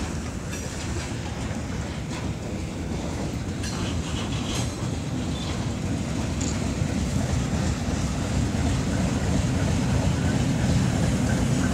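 ChME3 diesel shunting locomotive and its freight hopper wagons rolling past close by: wheels clicking over the rails, and the locomotive's diesel engine rumbling low and growing steadily louder as it comes alongside.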